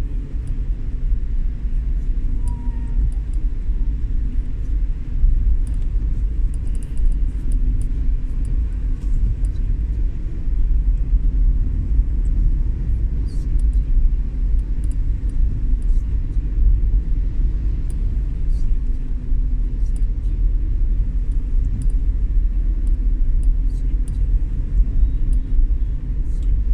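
Steady low rumble of a vehicle driving on a road, with faint scattered ticks throughout.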